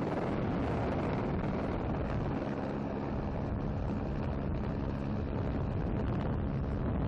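Steady engine drone held at one constant pitch over a dense rushing noise. The drone drops out about half a second in and returns after about two seconds.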